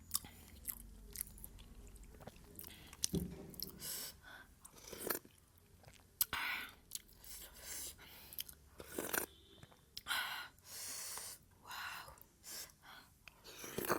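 Close-up chewing of momo dumplings in soup, with wet mouth noises and several short slurps in between.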